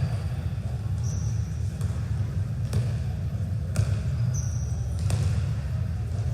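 Indoor court game sounds: a few sharp ball hits about a second apart near the middle, and two brief high sneaker squeaks on the floor, over the steady low hum of a large hall.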